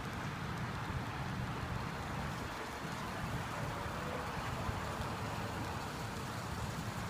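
Steady low rumble of street traffic and idling vehicles, with no distinct bangs or pops.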